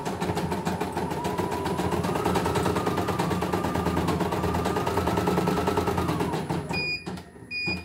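CNY E900 computerized embroidery machine stitching, a rapid even clatter of needle strokes over its motor whine, which rises in pitch about two seconds in and falls again near the end. The machine then stops and two short electronic beeps follow.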